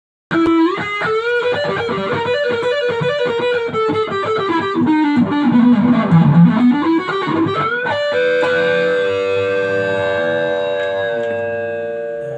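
Gibson guitar played solo: a single-note melody line that glides down and back up in pitch, then about eight seconds in a chord is struck and left ringing, fading out near the end.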